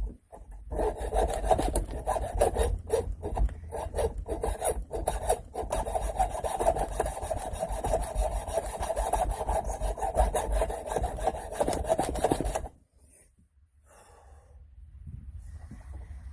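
Cutting through the center of a lug nut's end cap, a continuous rasping scrape. It stops about three-quarters of the way through, and a fainter scraping starts again near the end.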